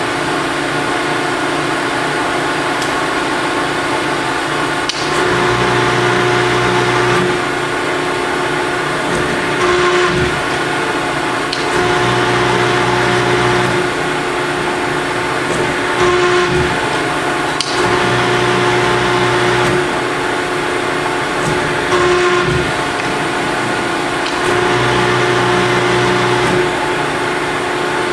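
Cincinnati Autoshape 175-ton hydraulic press brake running: the hydraulic pump hums steadily, and four times, about every six seconds, the sound deepens and rises slightly for about two seconds as the ram cycles, with a click or clunk between strokes.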